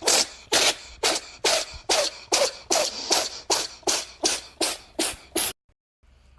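A cat sneezing over and over in a rapid fit, about three sharp sneezes a second, stopping abruptly about five and a half seconds in.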